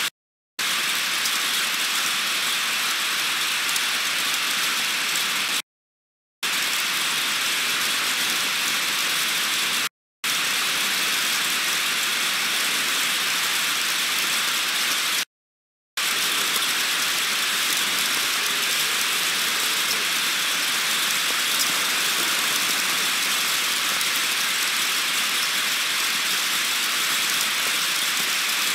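Heavy rain pouring down in a thunderstorm, a steady even hiss, broken by four brief dropouts to silence from the webcam stream.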